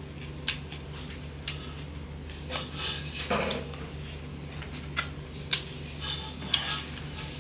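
Close-miked eating sounds: a man chewing with wet lip smacks and mouth clicks at irregular intervals, with a longer, fuller mouth sound about three seconds in.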